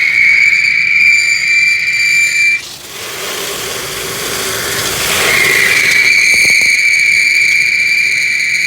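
Industrial vacuum hose drawing air with a steady high-pitched whistle. The whistle breaks off into a rushing hiss about two and a half seconds in, then comes back about five seconds in.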